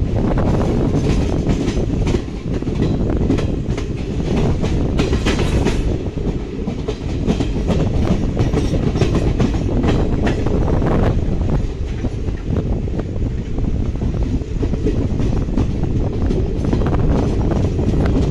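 Moving passenger train heard from on board: a steady low rumble of the wheels on the rails, with rapid sharp clattering as the wheels run over points and rail joints, heaviest in the first six seconds and again about ten seconds in.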